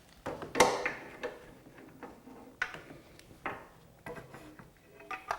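A 17 mm socket and hand tools being picked up and handled, giving a series of separate metallic clinks and knocks. The loudest comes about half a second in and rings briefly.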